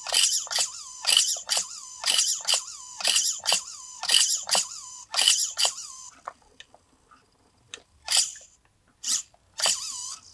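RC car steering servo whining as it swings the steering from lock to lock, about two short strokes a second. The strokes stop about six seconds in, and a few single moves follow. The steering parts are stiff but freeing up as they work in.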